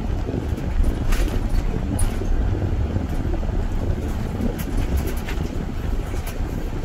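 Car on the move: a steady low rumble of road and engine noise, with a few light knocks scattered through it.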